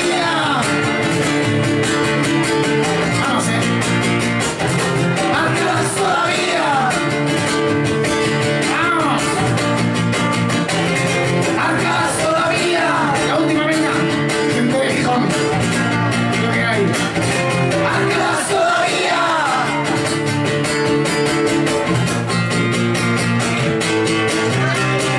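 Male singer-songwriter singing with a fast-strummed acoustic guitar, played live; sung phrases come and go over the strumming, which continues without a break.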